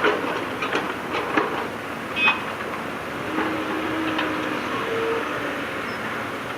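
Heavy earthmoving machinery working: a steady diesel engine with a string of metallic clanks near the start, a brief high squeal, then short whining tones.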